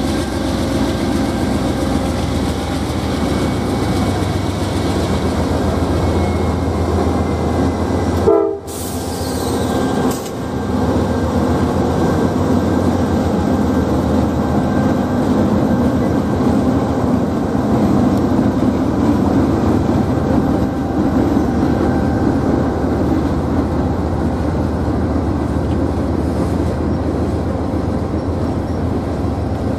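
Norfolk Southern diesel-electric freight locomotives pass with their engines running, followed by a long string of gondolas and autorack cars rolling by with steady wheel and rail noise. A single sharp thump with a brief dropout comes about eight seconds in.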